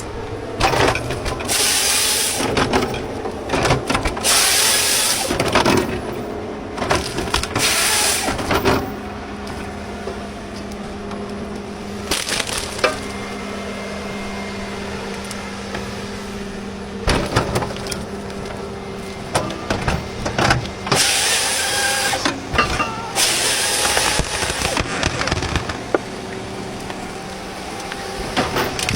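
Engine-driven log splitter running steadily, with wood cracking and breaking apart in repeated loud bursts.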